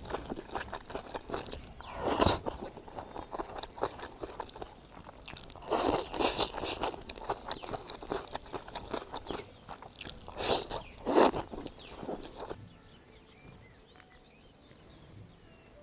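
A person eating, chewing and crunching food close to the microphone, with short clicks between the chews. There are louder crunches about two, six and eleven seconds in, and the chewing stops near the end, leaving only faint background.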